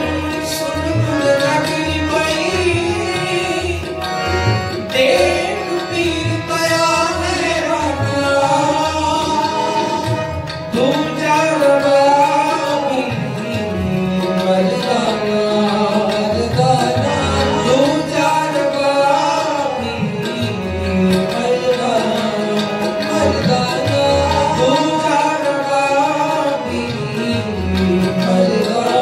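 Sikh kirtan: men singing a Gurbani shabad to harmonium, with a tabla keeping a steady rhythm.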